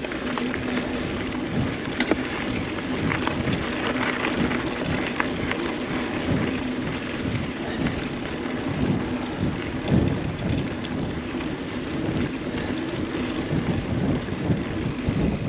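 A mountain bike riding a dirt trail: wind rushing over the microphone and tyre noise, with scattered clicks and rattles from the bike.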